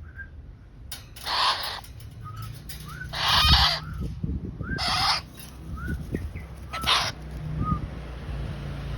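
Bird calls: four loud, harsh, raspy calls spaced about every second and a half to two seconds, with short, faint rising chirps between them.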